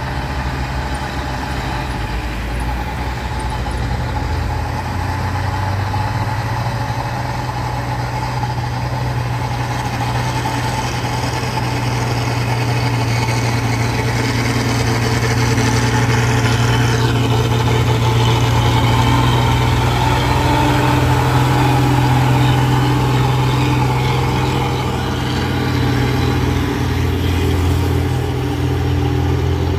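Heavy truck's diesel engine running steadily at low revs. It grows gradually louder toward the middle and eases off slightly near the end.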